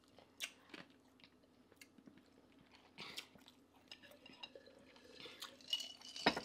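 Chewing and mouth sounds, with scattered light clicks and scrapes of a knife on a plate; a sharp clink about six seconds in.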